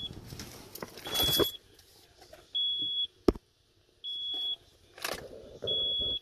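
Car's dashboard warning chime beeping with the doors open: a high steady tone about half a second long, repeating about every second and a half. A sharp click comes about three seconds in, with some rustling around it.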